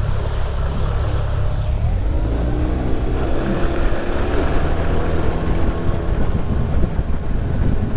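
A 20 hp Tohatsu four-stroke outboard motor running under throttle, its pitch rising from about two seconds in as the jon boat speeds up toward planing. Wind buffets the microphone.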